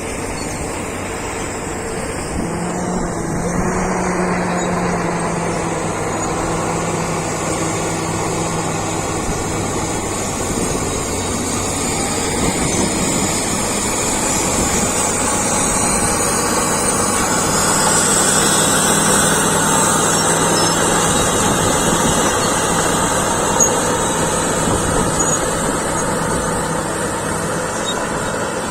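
Caterpillar D7G bulldozer's diesel engine running steadily as the machine works.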